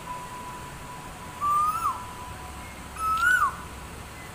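A loud whistled call sounds twice, about a second and a half apart: each one is a held, slightly rising tone that then drops off sharply. A faint steady tone hums beneath it at first.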